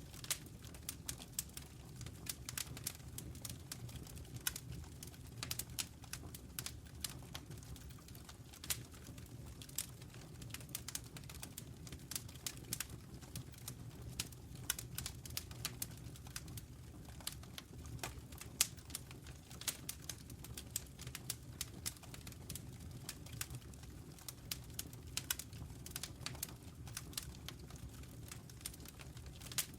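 Wood fire in a fireplace crackling: frequent irregular sharp pops and snaps over a low, steady rumble.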